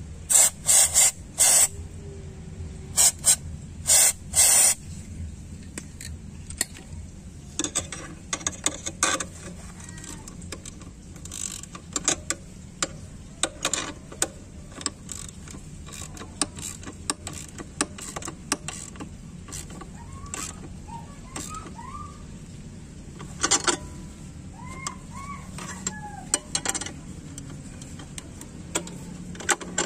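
Hand wrench clicking and clinking in short bursts as the bolts of an improvised puller are turned on a scooter's CVT roller pulley, loudest in the first five seconds. Small birds chirp faintly in the second half.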